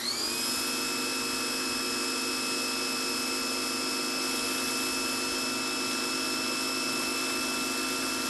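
Electric pressure washer switching on, its motor whine rising in pitch over about half a second and then running steadily, with water spraying hard through a spinning patio cleaner attachment.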